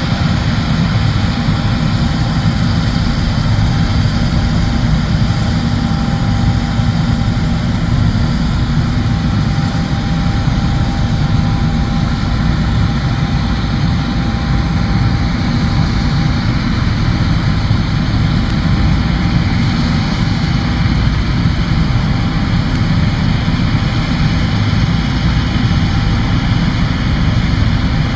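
John Deere combine harvester running steadily, a constant deep engine drone with a faint steady whine above it.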